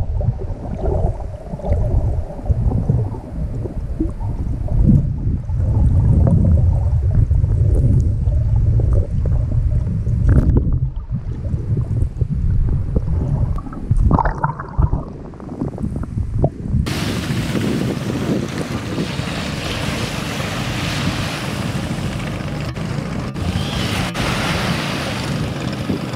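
Muffled underwater sound from a snorkeling camera: low rumbling water movement, with a brief gush of bubbles about two-thirds of the way through. It cuts suddenly to a steady hiss of wind and surf on a beach.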